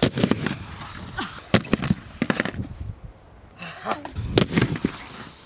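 Skateboard clacks and slaps: the board is popped and lands on the pavement, with sharp impacts coming in several quick clusters.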